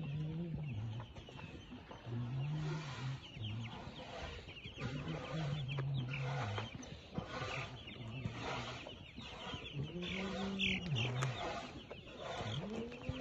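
A flock of chickens clucking and calling over one another, with dense chatter throughout and a few longer, low-pitched calls every few seconds.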